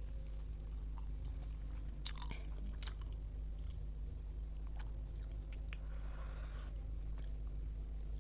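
A person eating rice and curry: chewing and wet mouth sounds with a few short sharp clicks, over a steady low hum.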